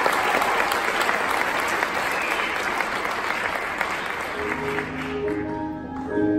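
Audience applauding, fading away about four seconds in, as instrumental music begins with slow held chords.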